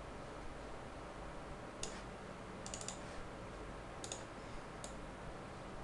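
Scattered sharp computer mouse clicks: one about two seconds in, a quick run of three or four just before three seconds, and two more around four and five seconds, over a steady faint hum.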